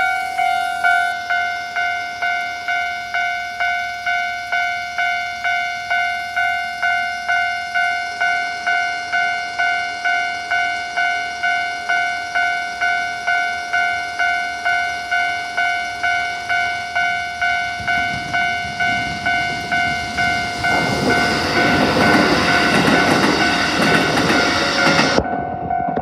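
Japanese railway level-crossing warning bell ringing in steady repeated dings, about two a second. From about 18 s in, a Keikyu electric train's running noise grows and passes through the crossing, louder than the bell near the end.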